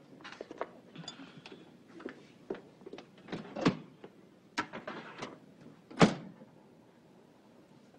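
Kitchen handling noises: a paper plate and a mixing bowl being handled and knocked on the counter, then a refrigerator door opened and shut. The shut, about six seconds in, is the loudest thump.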